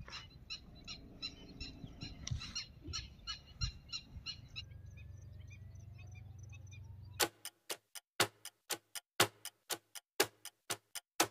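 Ticking-clock sound effect, about four ticks a second, over a low outdoor rumble. About seven seconds in, the outdoor sound cuts out abruptly and the ticks carry on alone, louder.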